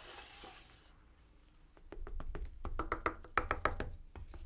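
A stick tapping and knocking against the paint-covered edge of a canvas while pushing drips off, in a quick run of light knocks with a soft hiss at the start.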